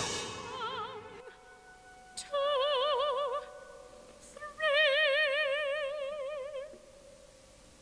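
An operatic female voice singing two long high notes with a wide vibrato, the second note longer, over a faint held tone. At the start, the end of a loud orchestral passage dies away.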